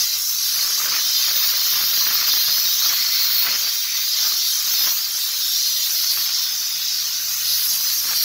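Handheld steam-cleaning gun blasting a continuous jet of steam onto a car's wheel and tyre: a steady, high hiss.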